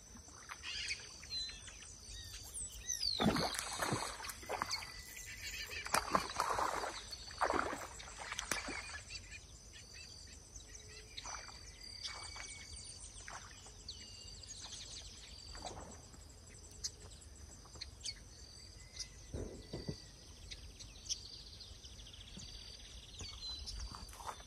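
Outdoor riverside background with birds calling and chirping, and a run of louder irregular rustling noises from about three to nine seconds in.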